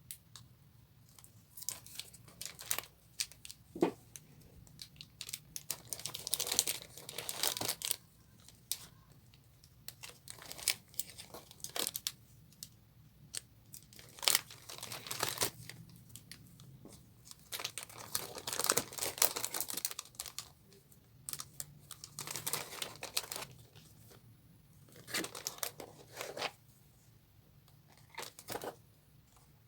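Packaging being torn open and crinkled by hand, in repeated bursts of rustling with short pauses and a few sharp clicks between them.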